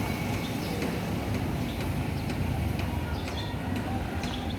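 Outdoor vehicle-terminal background: a steady low rumble of engines and traffic, with scattered faint high chirps and small ticks.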